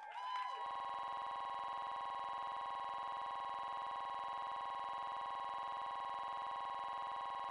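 Short gliding electronic tones, then about half a second in a steady, unchanging electronic buzzing tone with many overtones starts and holds.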